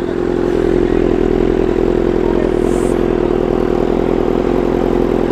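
Superbike with an Akrapovic aftermarket exhaust running loudly at steady revs, a deep even exhaust note.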